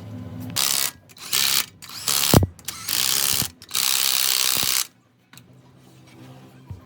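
A wrench ratcheting in five bursts, from under half a second to about a second each, with one sharp knock in the middle of them.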